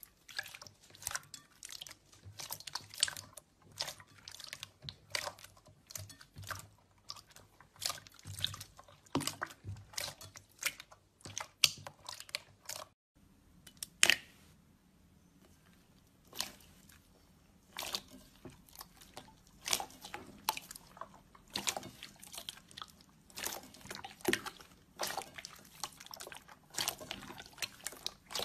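Hands squishing and kneading clear slime, giving irregular wet clicks and pops. The sound drops out briefly about halfway through, then the squishing resumes.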